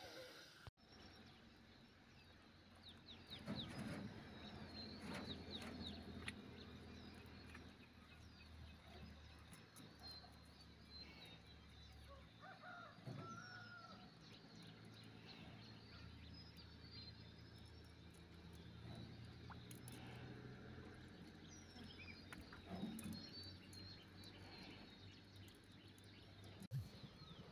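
Faint rooster crowing and chicken clucking, with small birds chirping and a low steady hum underneath.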